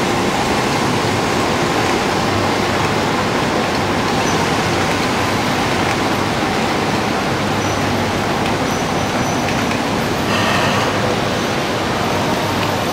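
Shinkansen bullet train running slowly past on wet track, a steady rushing noise without distinct clicks or a horn. The sound changes abruptly about ten seconds in.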